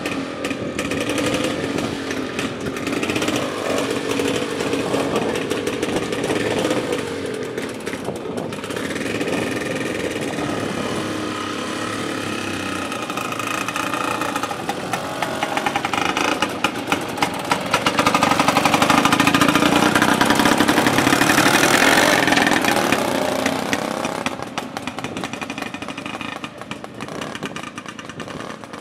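Engines of two vintage motorcycles running and revving as the bikes pull away, getting louder with rising revs in the middle and then fading as they ride off.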